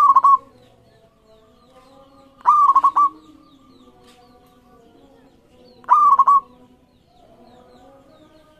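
Zebra dove (perkutut) singing three short, loud phrases of quick staccato cooing notes, about three seconds apart. Other doves coo more softly in the background throughout.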